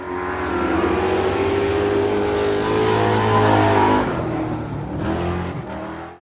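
Race car engine running hard, its pitch climbing slightly, then easing off about four seconds in. The sound cuts off suddenly near the end.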